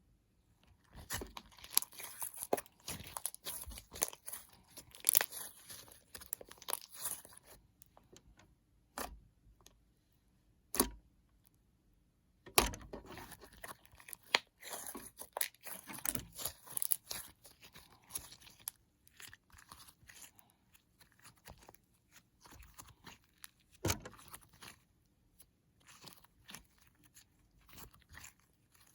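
Slime being squished, stretched and poked by hand: irregular wet clicks, pops and crackles coming in bursts, with a few pauses of a couple of seconds.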